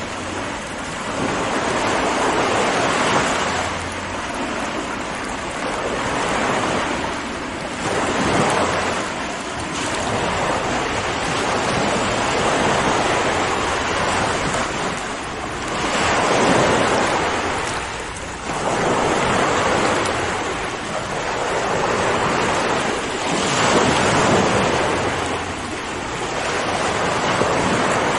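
Ocean waves breaking on a shore, surf swelling and washing back every few seconds in a continuous rush.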